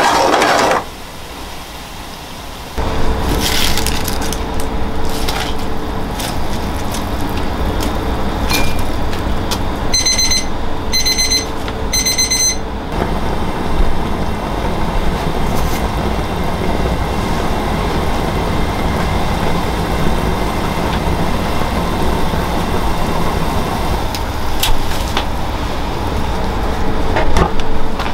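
Oil in a frying pan sizzling as the pan is tossed, cutting off under a second in. After a short lull, a commercial kitchen's steady rumbling roar takes over, and a kitchen timer beeps in three short bursts around ten to twelve seconds in.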